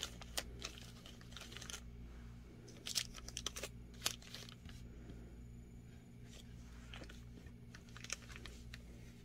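Small plastic zip-top bags of beads crinkling and clicking as they are handled and moved on a table, in short scattered bursts that are busiest in the first four seconds, with one more near the end. A steady low hum runs underneath.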